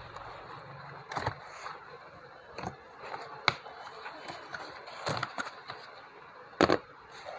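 Cardboard shipping box being opened by hand: the flaps are pulled back and handled, with scattered scrapes and sharp knocks at irregular moments, the loudest a little before the end.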